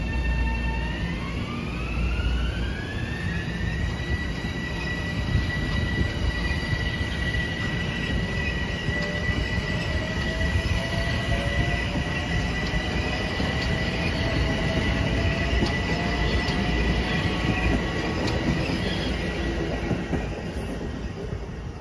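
Metro-North M7A electric multiple-unit train pulling out, its traction motors whining and climbing in pitch over the first few seconds, then holding a steady high whine over the rumble of wheels on rail. A second, lower whine rises slowly in the middle, and the sound fades near the end as the train leaves.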